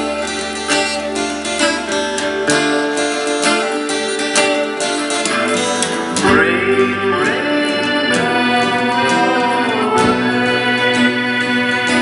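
Instrumental passage of a song: a steel-string acoustic guitar picked along with a prerecorded backing track that carries keyboards. A few sliding notes come just past the middle.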